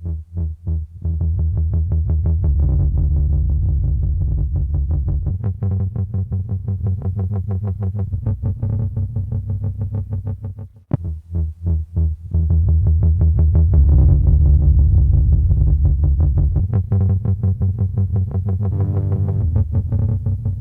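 Electronic music track built in the Music Maker JAM app: a synthesizer over heavy bass and a fast, steady pulsing beat. It drops out briefly about halfway through and comes back in.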